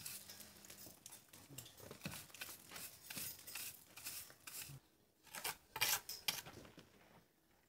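A hand tool scraping and picking at the mortar joints of a rough stone wall. It makes irregular scratches and small clicks, with a few sharper ticks about five to six seconds in.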